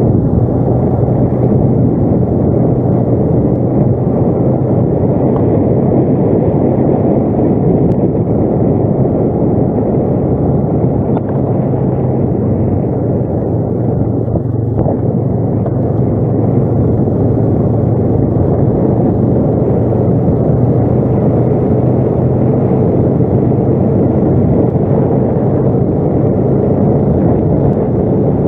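ATV engine running at a steady pace while riding, a constant low drone with a steady hum.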